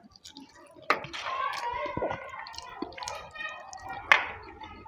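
Background voices talking, with two sharp clicks, one about a second in and one near the end.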